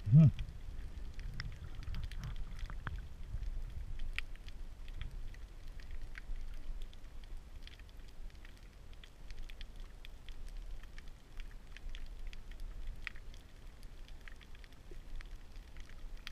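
Underwater ambience heard through a submerged camera: a steady low rumble with scattered faint clicks and crackles. A short pitched hum-like tone just after the start is the loudest moment.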